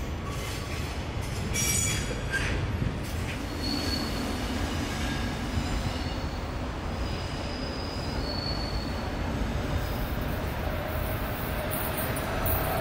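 An EF65 electric locomotive and its freight wagons moving slowly during shunting: a steady low rolling rumble, with brief high wheel squeals about four seconds in and again a few seconds later.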